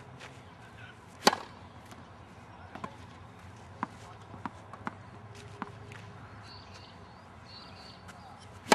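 Tennis ball struck hard by a racket twice, about a second in and again near the end, each a single sharp crack, with a few fainter ticks in between.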